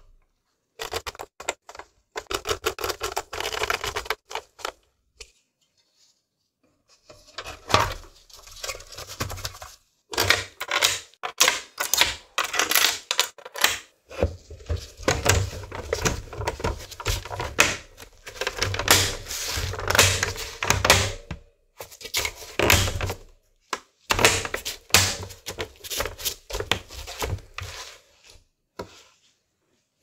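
Plastic and metal parts of an Xbox One S console being handled during reassembly: bursts of clicking, knocking and scraping as components are fitted and the plastic casing is pressed back into place. There is a pause of about two seconds about five seconds in.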